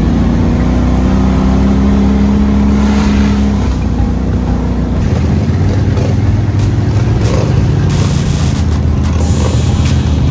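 ATV engines running at trail speed, the note holding steady and then dropping lower about four seconds in.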